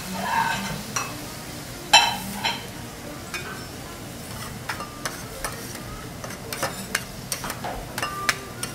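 Steel teppanyaki spatulas scraping and clinking on a hot steel griddle, a string of short sharp taps and scrapes, some ringing briefly, the loudest about two seconds in. A faint sizzle of beef fat frying on the plate runs beneath.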